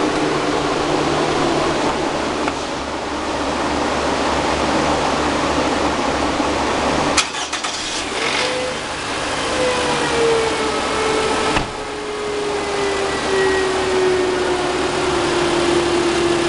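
Toyota RAV4 engine being started and running, with a couple of sharp clicks about seven and eleven seconds in. Over the second half a clear whine slowly falls in pitch.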